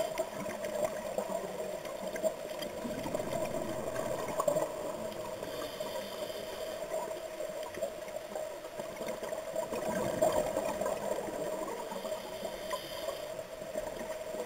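Underwater sound of a scuba diver breathing through a regulator: a short hiss of inhalation about every six seconds, with bursts of gurgling exhaled bubbles in between, over a steady underwater hum.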